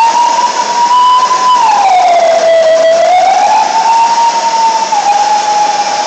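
Vacuum cleaner played as an instrument by drawing its suction through the hose at the player's mouth, giving a single loud wailing tone. It holds one pitch, then about a second and a half in slides down and back up, and steps slightly lower near the end.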